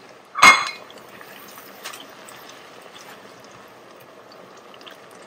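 A sharp metallic clank about half a second in, then a steady soft sizzle of onions frying in palm oil in the pot.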